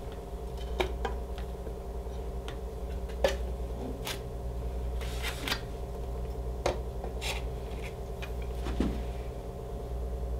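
Computer cooling fans running with a steady hum, and a handful of short clicks and knocks from parts being handled and positioned on a bench.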